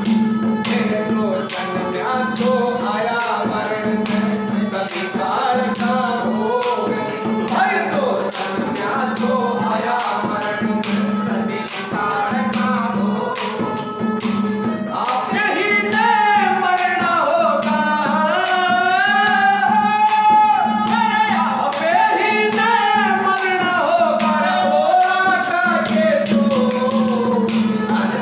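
A harmonium plays the melody with hand-drum strokes over a steady low drone, in a Haryanvi folk bhajan. A man's singing voice comes in about halfway through, with long gliding held notes.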